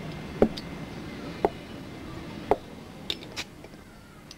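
Several sharp knocks about a second apart, then two lighter, higher clicks, over a low steady background murmur.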